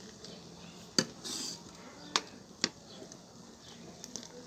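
Three sharp clicks, about one, two and two and a half seconds in, with a short hiss just after the first, as milk cream is poured into a hot kadhai.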